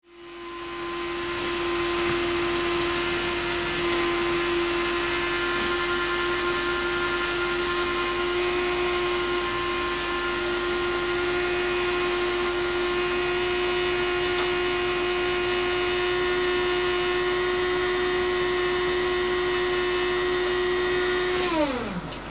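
A steady droning hum with several higher whining tones over it. It fades in at the start, holds one pitch, and near the end slides sharply down in pitch and cuts off, like a motor winding down or a tape stop.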